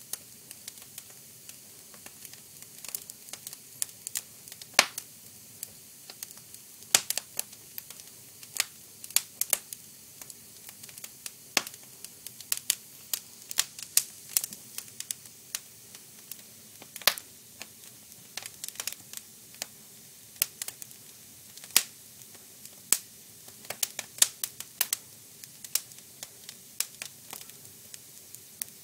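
Wood fire crackling, with irregular sharp pops and snaps, several a second at times, over a faint low hiss.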